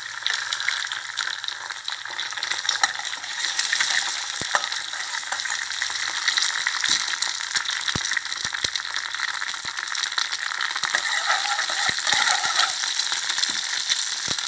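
A hen's egg frying in hot oil with minced garlic in a wok, sizzling and crackling steadily as it is broken up and stirred, with a few sharp knocks along the way.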